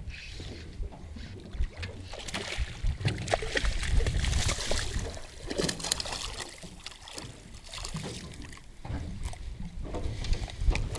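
Wind on the microphone and water splashing and sloshing around a small fishing boat, with scattered knocks and clicks.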